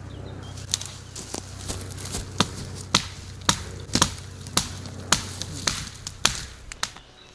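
Dry dead spruce wood being broken up by hand: a series of sharp cracks, about two a second.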